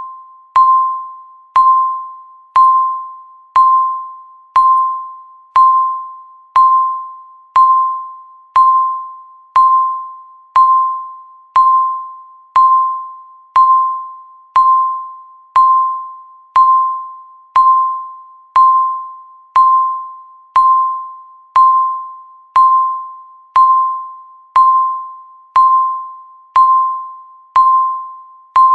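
Countdown timer beeping once a second: a single electronic tone that starts sharply and fades away before the next.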